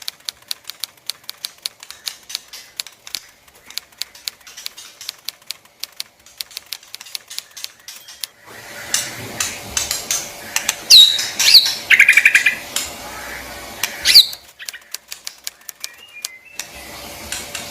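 A caged murai, a white-rumped shama: a fast series of sharp clicks, then a stretch of rustling and flutter with a few loud, sharp whistled notes falling in pitch, and faint chirps near the end.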